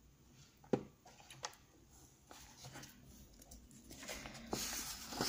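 A couple of light taps, then a coloring book page being lifted and turned, a paper rustle that builds near the end.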